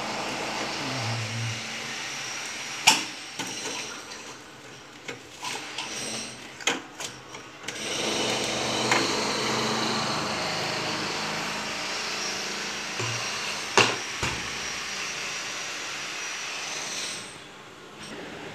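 Sharp plastic clicks and knocks as a plastic ice-pop mould is handled and lifted off a freezer shelf, two of them loud, over a steady whirring noise that drops away near the end.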